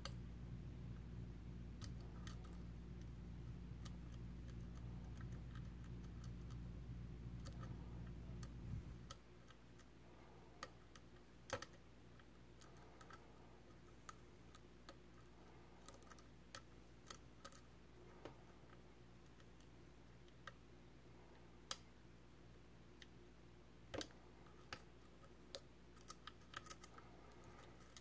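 Faint, scattered small metallic clicks of lock picks and a tension wrench working inside a Medeco M3 high-security lock cylinder during picking. A low steady hum underlies the first nine seconds or so, then stops suddenly.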